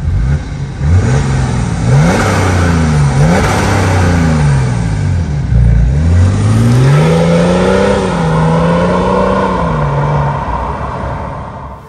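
BMW 530d's 3.0-litre straight-six turbodiesel, Stage 1 tuned and fitted with a modified exhaust, revved in several quick blips, then accelerating away with its pitch climbing and fading with distance near the end.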